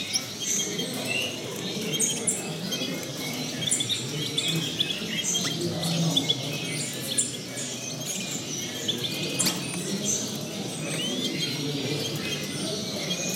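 Short, scattered chirps and calls of small caged finches, many overlapping, over a steady low background murmur.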